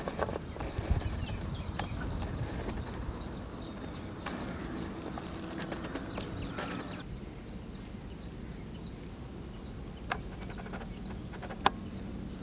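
Footsteps of a person walking along a dirt path through grass, with scattered short scuffs and clicks over outdoor background noise. The sound turns quieter about seven seconds in, and a sharp click stands out near the end.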